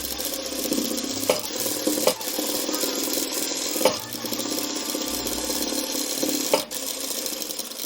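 Sewing machine stitching steadily along a folded hem, with a few sharp clicks.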